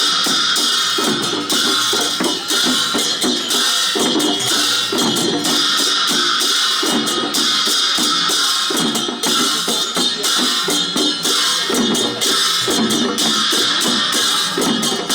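Drums and cymbals playing together: a steady repeating drum beat with cymbals clashing and ringing over it.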